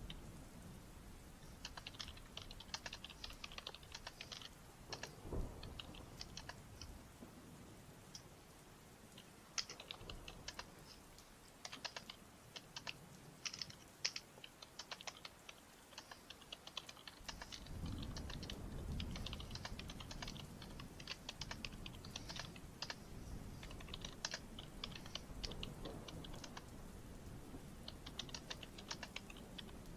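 Typing on a computer keyboard, in bursts of quick key clicks broken by short pauses. A low rumble comes in about two-thirds of the way through.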